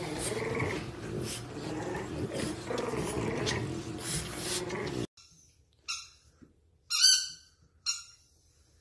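Adult French bulldog growling and snuffling in rough play with a puppy, cut off abruptly about five seconds in. Then three short, high-pitched squeaks, the middle one the loudest.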